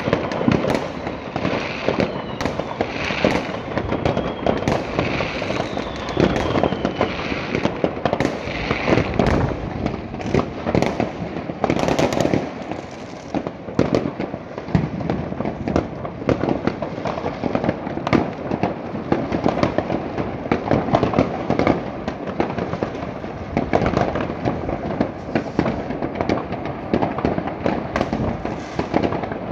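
Many fireworks and firecrackers going off across a city, near and far: a continuous crackle of bangs and pops. A few whistles fall in pitch in the first several seconds.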